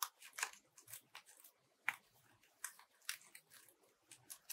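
Foam fruit netting crinkling and crackling as fingers squeeze and roll it into a flower: short, irregular rustles, with one sharper crackle about two seconds in.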